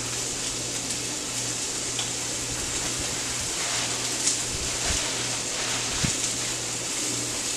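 Chicken frying in a cast iron skillet: a steady sizzling hiss with a few faint pops.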